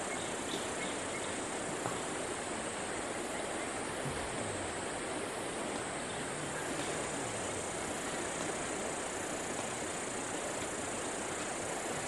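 Steady outdoor ambience: an even rushing hiss with a constant high-pitched drone above it, no distinct events.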